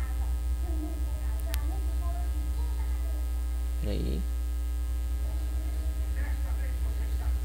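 Loud, steady low electrical mains hum picked up by the recording microphone, with a faint click about a second and a half in and a brief murmur about four seconds in.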